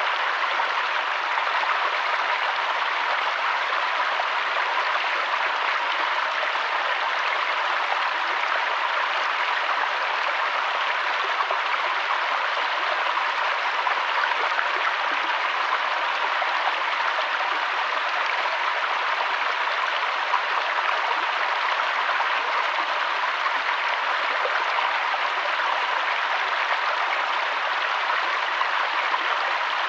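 Steady rushing water of a mountain waterfall, a constant even hiss that does not change.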